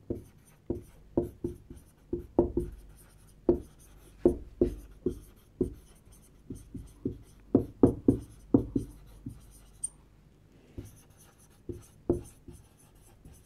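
Whiteboard marker writing words by hand, squeaking and tapping against the board in short, irregular strokes, with a pause of about a second near the ten-second mark.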